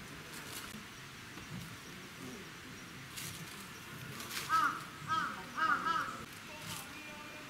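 A bird calling: about five short, arched calls in quick groups about halfway through, over faint outdoor background with a few light clicks.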